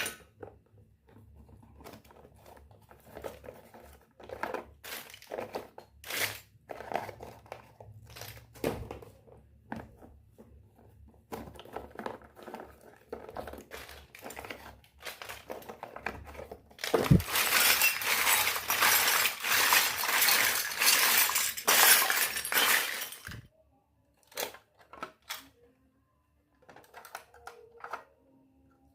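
Miniature toy kitchenware being handled: a string of small clicks and clinks as pieces are picked up and set down, then, about 17 seconds in, plastic packaging crinkling for some six seconds, followed by a few light taps.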